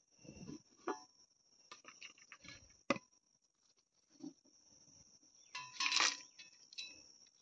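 Handling a steel mixer-grinder jar: scattered light knocks and a sharp metal clink about three seconds in, then a brief rattle near the end as dry masoor dal and spices are dropped by hand into the empty jar. The grinder motor is not running.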